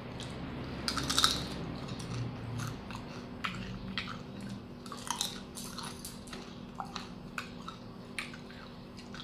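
Crisp fried banana chips (paprika flavour) being bitten and chewed close to the microphone: irregular sharp crunches, the loudest about a second in, over a faint steady low hum.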